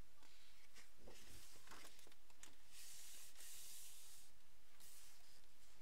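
Paper pages of a hardcover picture book turned and smoothed flat by hand: a hissing swish of paper about three seconds in, lasting more than a second, with small taps and rubs of fingers on paper before it.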